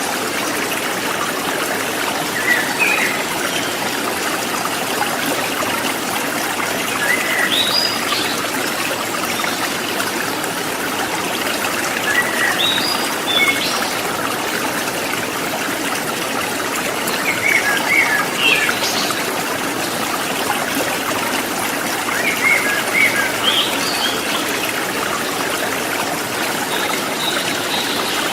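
Shallow river running over rocks, a steady trickling and splashing of water. A bird chirps briefly every few seconds over it.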